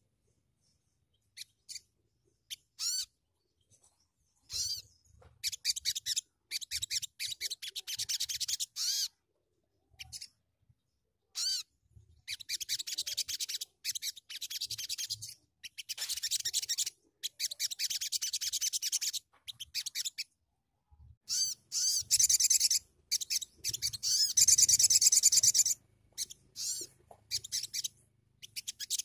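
A caged sunbird, a young 'sogon', singing in bursts of rapid, very high-pitched chattering chirps. Each burst lasts one to three seconds, with short pauses between them. The longest and loudest burst comes near the end.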